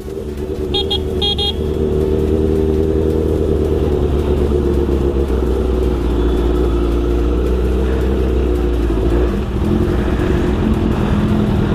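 Motorcycle engine running steadily while riding, with a low rumble throughout. Two short horn beeps about a second in.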